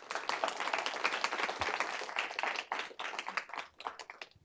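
Audience applauding: dense clapping that thins to a few scattered claps and dies away near the end.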